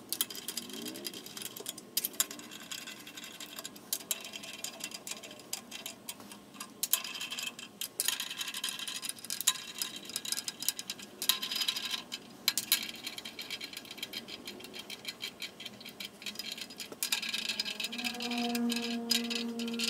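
Ratchet wrench clicking in quick, uneven runs as the cylinder head bolts are run down, with light metal clinks. Near the end a passing car's engine hum comes in.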